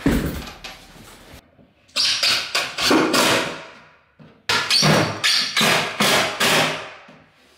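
Cordless driver sinking screws through the side of a kickboard frame, in two runs of about two seconds each, the second starting about halfway in.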